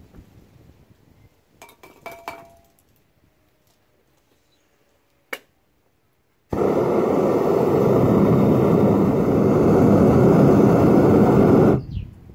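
A few light metallic clinks of a slotted steel spoon against the crucible in the melt, then a propane foundry furnace's burner running with a loud, steady rush for about five seconds, heating the molten copper before the pour; it cuts off abruptly near the end.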